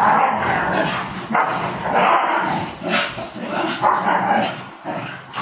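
Dogs vocalizing while playing, in several long bursts that stop shortly before the end.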